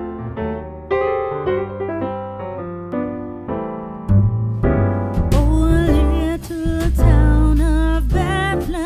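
Background music: electric piano chords, joined about four seconds in by a heavy bass line, with a singing voice entering about five seconds in.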